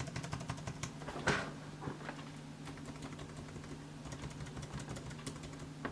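Plastic keys of a Bluetooth keyboard being typed on in quick, light clicks, with a sharper click about a second in, as a test of how loud the keys are.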